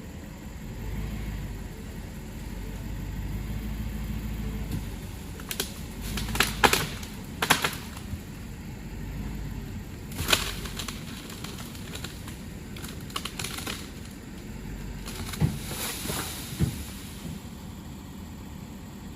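A truck engine running low and steady while storm-downed tree limbs are dragged, with a run of sharp cracks and snaps of branches and rustling leaves, loudest about a third of the way in and again near the end.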